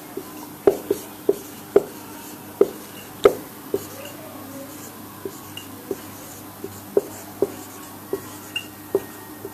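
Marker pen writing on a whiteboard: sharp, irregular taps of the tip against the board, about one or two a second.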